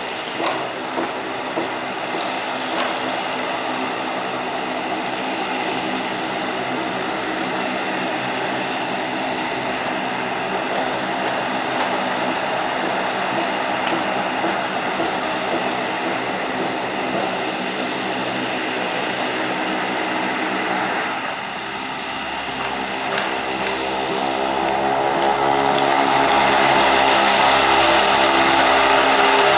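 Lockheed C-130H-30 Hercules taxiing with its four Allison T56 turboprop engines running: a steady propeller drone made of many even tones. It dips briefly about two-thirds of the way through, then grows louder over the last few seconds as the aircraft turns onto the runway.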